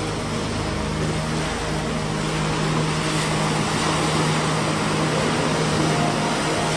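Steady rush of sea waves and surf, with a low steady hum running underneath.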